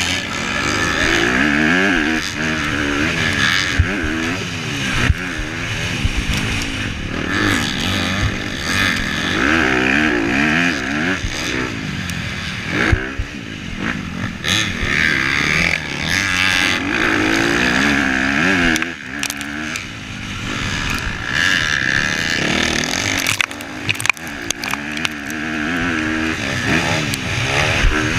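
Onboard sound of a Honda CRF250R motocross bike's 250 cc four-stroke single-cylinder engine, revving up and down over and over as the rider accelerates, shifts and backs off through the corners. Wind rushes past the microphone, and sharp knocks come from the bike hitting the rutted track.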